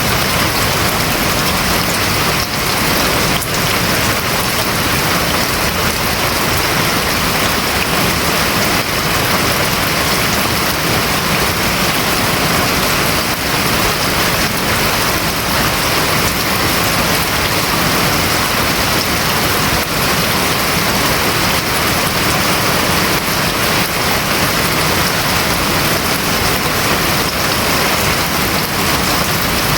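Steady heavy rain drumming on a house roof: a dense, even patter with no let-up.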